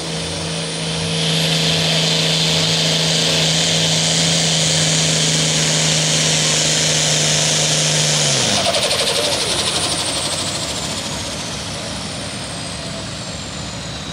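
Turbocharged diesel engine of a red International Pro Farm pulling tractor, revved up about a second in and held at high rpm with a strong high whine. About eight seconds in its note drops as it takes the sled's load and starts the pull, followed by a falling high whistle.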